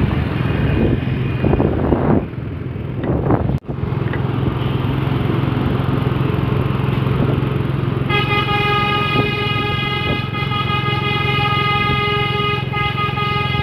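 Container truck's telolet basuri musical horn comes on about eight seconds in and holds a steady multi-tone chord over the truck's running engine.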